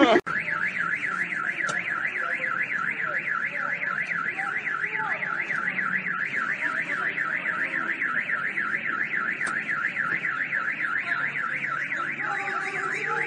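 Car alarm sounding a fast, unbroken warble, its tone swinging up and down about three to four times a second.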